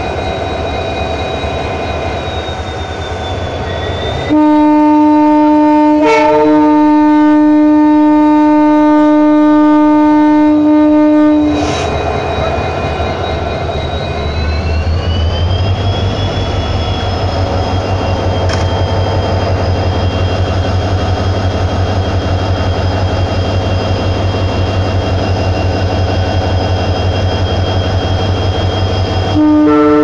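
EMD WDG4 diesel-electric locomotive, with its 16-cylinder two-stroke EMD 710 engine. The horn sounds in one long, loud blast of about seven seconds. A few seconds later the engine revs up as the throttle is notched up: its whine rises in pitch and the low engine sound grows stronger and holds. The horn sounds again right at the end.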